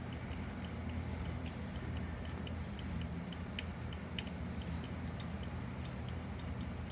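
A Cardisoma carnifex land crab eating a piece of apple: faint ticking and small crunches from its mouthparts, about three ticks a second, with two sharper clicks near the middle, over a steady low hum.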